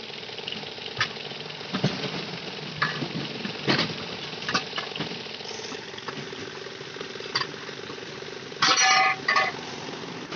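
An engine runs steadily, with scattered sharp knocks of tyre work. Near the end a vehicle horn honks twice, loudly.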